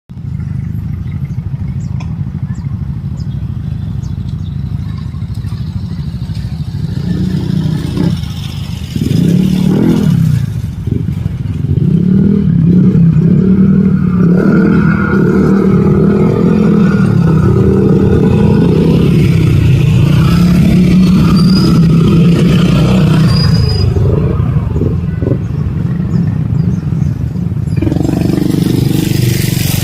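A motor vehicle engine running close by, louder from about nine seconds in, with a slightly wavering hum over a constant low rumble.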